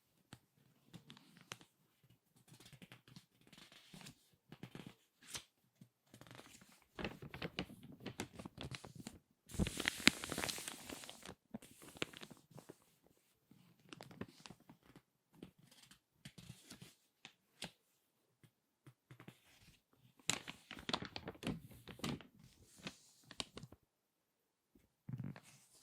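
Crinkly glossy magazine pages being turned and squeezed by hand: irregular crackling and rustling, densest about ten seconds in and again near the end.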